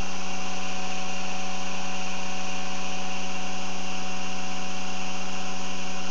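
Experimental three-phase pulse motor running steadily, a constant hum with a strong low tone and even overtones above it.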